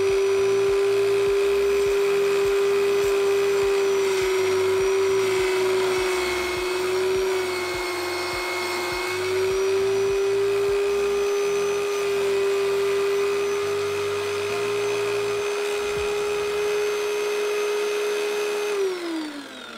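Small Harbor Freight wet tile saw with a diamond blade running at a steady whine while mosaic tile is cut. The pitch sags a little for a few seconds around the middle as the blade bites into the tile. Near the end it is switched off and the whine falls away as the blade spins down.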